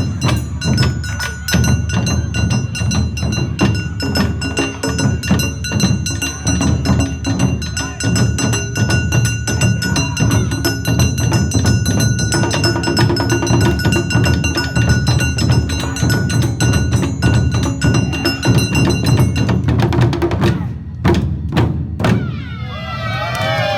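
Awa Odori festival band playing live: a fast, dense beat of drums with ringing metal bell strikes over it. Near the end the playing breaks off into a few single strikes, and then voices call out.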